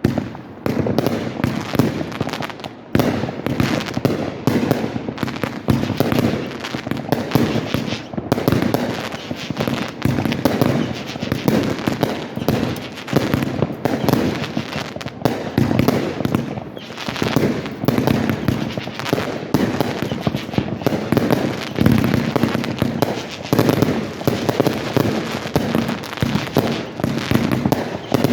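Aerial fireworks show: shells bursting in rapid succession, many overlapping booms and crackles with no break between them.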